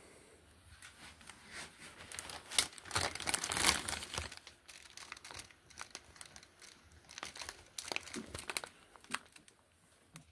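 Crinkling and rustling handling noises with many small sharp crackles and clicks, loudest about three to four seconds in, then thinning out to scattered clicks.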